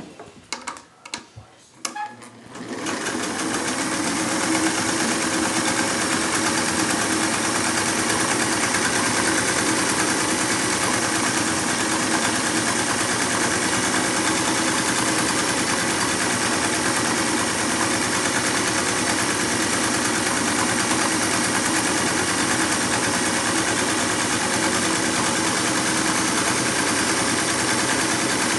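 A few clicks and knocks, then a Singer 192K Spartan straight-stitch sewing machine starts about two and a half seconds in. It picks up speed over a second or so and then runs at an even, fast speed.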